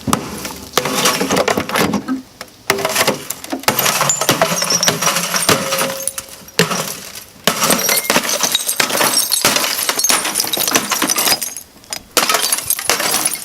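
An old television being smashed open: repeated blows crack its glass and casing, with breaking glass and clattering shards, pausing briefly twice.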